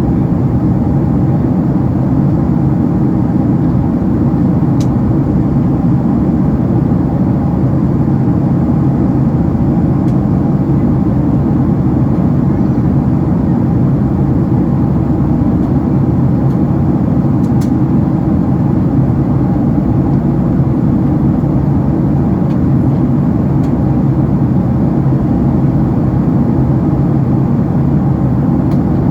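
Steady interior cabin noise of a Boeing 767-300ER airborne after takeoff: a constant low rush of airflow and engine drone, unchanging throughout.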